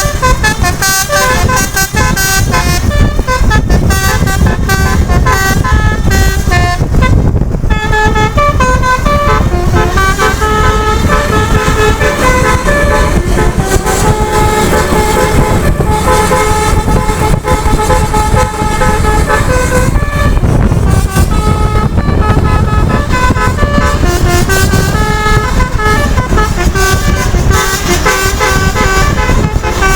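Telolet basuri bus horn playing a melody, one held note after another stepping up and down in pitch, over a steady low rumble of the bus running on the road.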